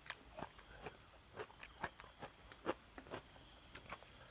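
Faint eating sounds: irregular small clicks and crunches of someone chewing.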